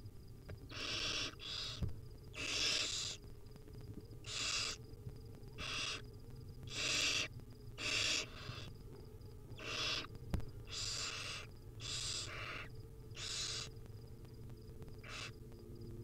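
Barn owl nestlings giving their rasping, hissing begging calls, about a dozen in a row roughly a second apart, the sign of hungry chicks asking to be fed. A single sharp click comes about ten seconds in.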